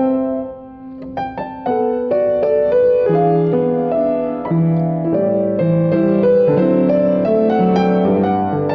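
Solo piano playing a gentle, flowing melody. Sparse and soft for the first second or so, it fills out with fuller chords and a lower bass line from about three seconds in.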